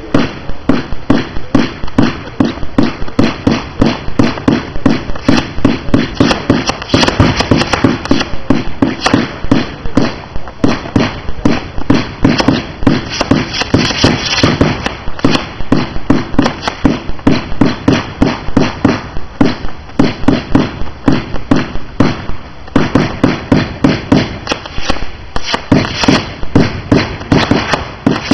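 Multi-shot consumer fireworks cake (TW 110 launcher) firing continuously, several shots a second, each launch followed by popping, crackling bursts. The barrage thins briefly about two thirds of the way through, then picks up again.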